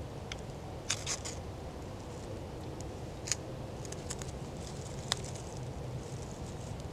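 Ferro rod being struck over a tinder bundle of birch bark, giving a few short, sharp scrapes spaced a second or more apart over a steady low background.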